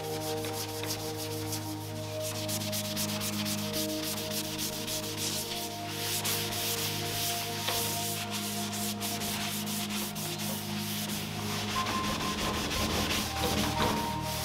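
A cloth rag wiping wood stain across a bare wooden tabletop, rubbing continuously, stroke after stroke.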